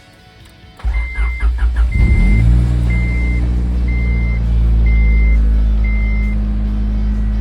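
Honda Integra Type R's four-cylinder engine cranking briefly, catching about two seconds in and settling into a steady idle, starting on its newly fitted Bosch main relay. A high warning chime beeps six times, about once a second, while it starts.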